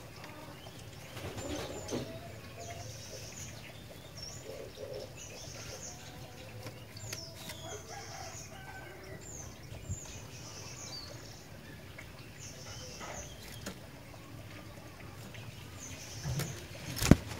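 Sooty-headed bulbul (kutilang) chirping: short, high calls that repeat every second or so, with a single sharp knock near the end.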